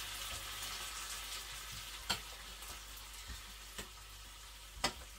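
Food sizzling in a frying pan, a steady hiss, while a utensil stirs in a stainless steel pot and knocks sharply against it three times.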